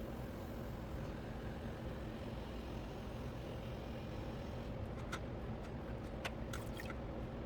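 Steady hum of an electric potter's wheel motor running, with a few light clicks about two-thirds of the way through.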